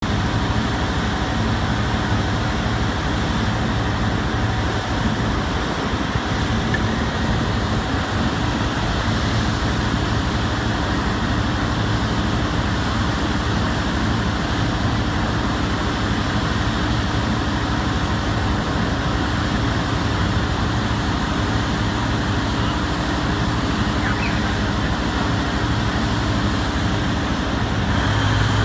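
1500 kVA diesel generator set running steadily with a loud, even engine drone and low hum, unloaded before its 50% step-load test. Near the end the low rumble grows louder as the step load comes on.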